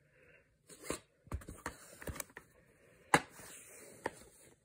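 A plastic DVD case being closed and picked up: a run of sharp clicks and knocks with light rustling, the loudest click about three seconds in.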